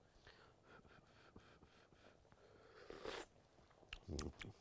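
Faint mouth sounds of tasting hot sauce from a spoon: small clicks, a brief breathy slurp about three seconds in, then a short low hum near the end.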